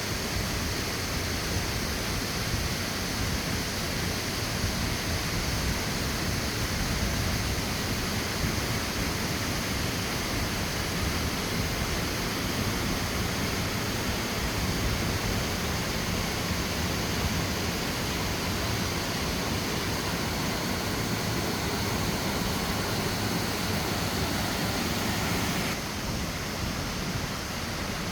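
Steady rushing of water in a canyon stream, an unbroken hiss that turns slightly quieter and duller near the end.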